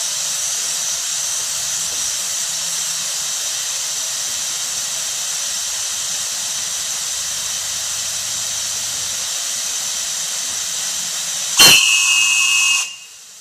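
A steady high hiss, then about 11.5 s in a steam locomotive whistle gives a short, loud, shrill blast of several tones that cuts off sharply and starts again near the end.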